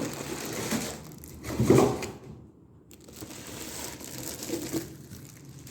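Plastic packaging crinkling and rustling as items are handled and packed back into a box, louder in the first two seconds, then softer after a brief lull.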